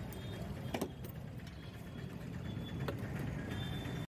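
Steady low rumble of street traffic, with a few light clicks about a second in and again near three seconds.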